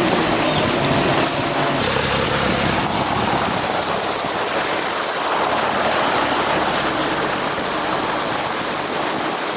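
Water rushing and splashing around a 4x4 driving through a river, with the engine running low underneath the water noise.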